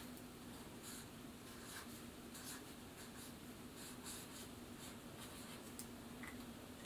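Felt-tip marker writing on a paper index card: a series of faint, short scratchy strokes as a word is written.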